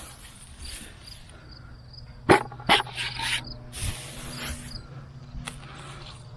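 Hay mulch rustling as it is pulled back and handled by hand, with two sharp knocks a little over two seconds in, over a faint steady insect chirp.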